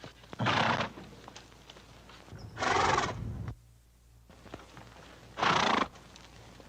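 Horse calling: three short, loud calls about two and a half seconds apart, the middle one the longest.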